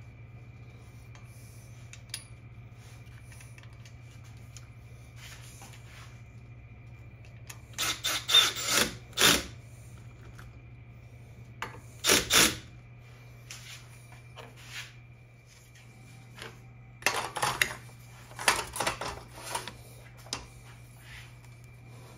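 Bursts of clattering and scraping as aluminum angle support rails and a plastic drag chain are handled and seated in their brackets. The bursts come in three clusters: about a third of the way in, again just past halfway, and for a couple of seconds near the end. A steady low hum runs underneath.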